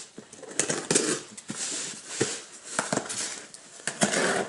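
A small knife blade slitting the packing tape along the seam of a cardboard box: several short, scratchy strokes with a few sharp clicks between them.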